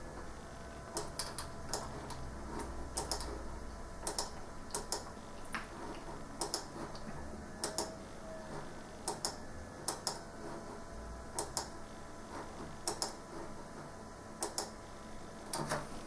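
Sharp, light clicks, often in quick pairs, coming irregularly about once a second.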